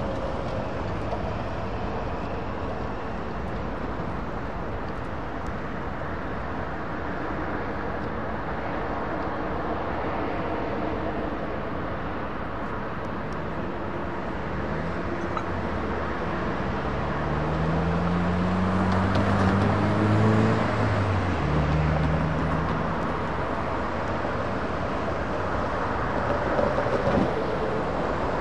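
Steady outdoor traffic noise. About halfway through, a vehicle engine rises in pitch for several seconds, drops back and holds steady briefly.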